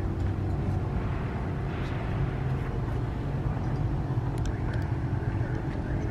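Steady low rumble of outdoor background noise, with a faint steady hum and no distinct events.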